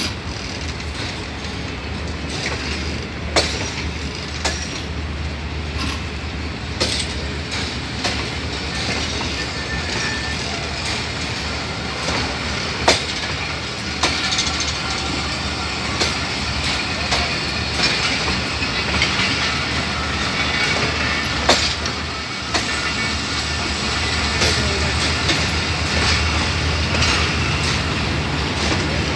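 Pakistan Railways passenger coaches of a departing express rolling slowly past, their wheels clicking sharply over rail joints every second or few, over a steady low rumble that builds a little toward the end.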